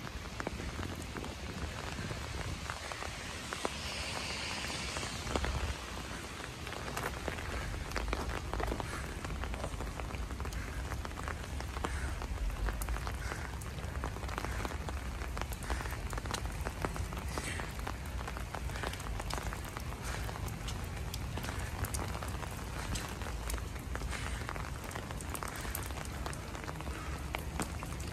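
Steady rain falling, with many individual drops ticking close by over a low rumble.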